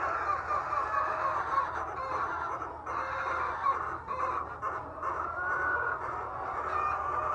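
A large flock of egg-laying hens clucking and calling together, many short overlapping calls at once, over a steady low hum.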